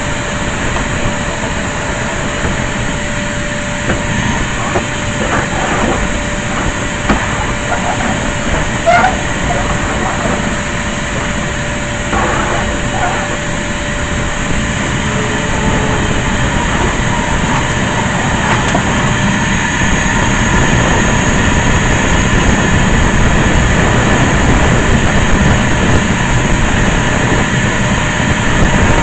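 Vacuum cleaner motor running steadily, with scattered clicks and knocks in the middle, getting a little louder toward the end.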